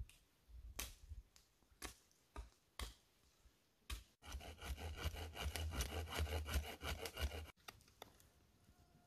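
A few sharp wooden knocks, then a hand saw cutting through a thin wooden pole in quick, rasping strokes for about three seconds before stopping abruptly. Near the end comes the faint scrape of a knife carving a stick.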